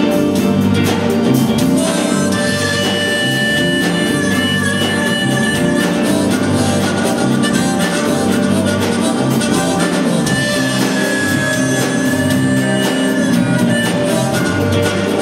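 Live rock band: a harmonica solo with long held high notes over electric guitar, bass guitar, drums and keyboard.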